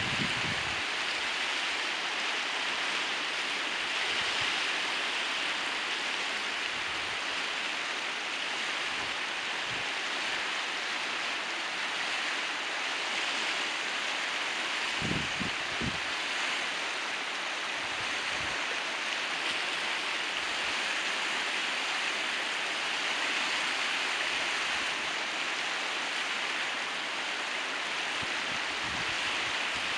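River Nore running high and fast, its water rushing steadily over rocks and shallows below a bridge. A few low thumps sound about halfway through.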